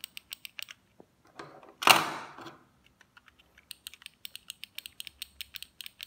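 Rapid light clicks, several a second, with a short rustle of handling about two seconds in; the clicks thin out in the middle and come thickly again from about four seconds on.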